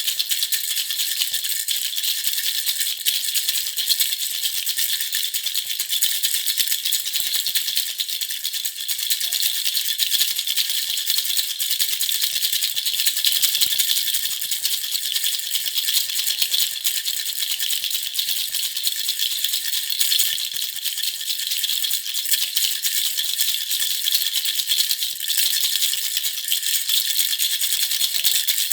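Baby rattle (jhunjhuna) shaken without pause: a dense, steady rattle of small beads, mostly high in pitch.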